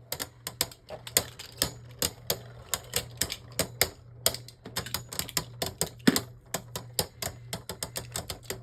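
Two Beyblade Burst spinning tops, Dusk Spryzen and Genesis, battling in a plastic stadium: rapid, irregular sharp clacks as the tops strike each other and the stadium wall.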